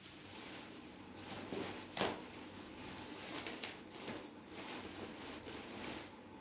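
Scattered faint clicks and light knocks from a small hand-turned popcorn drum being worked over a burner, with one sharper click about two seconds in.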